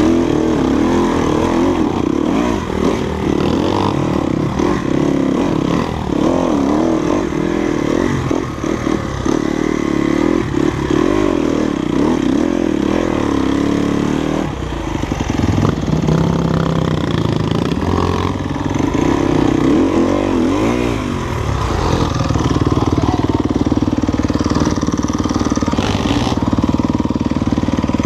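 Off-road motorcycle engine being ridden, its revs rising and falling again and again, then holding a steadier pitch for the last several seconds.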